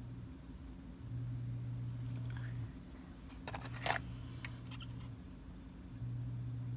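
Small clicks and taps of hands working at the needle of an industrial sewing machine, rethreading it after the thread slipped out; they come in a short cluster near the middle. Under them a low hum cuts in for a second or two at a time, about every two and a half seconds.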